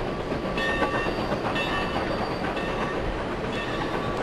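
Steam-hauled excursion train behind the Frisco 1522 rolling by with a steady rumble and rattle. A high ringing tone comes and goes about once a second.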